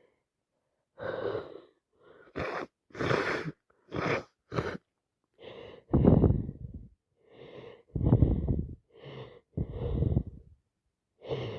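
A woman sneezing again and again with a cold on top of hay fever, in about a dozen separate bursts. Several sharp, hissy sneezes come in the first five seconds, then a run of longer voiced, wheezy sneezes and gasping breaths.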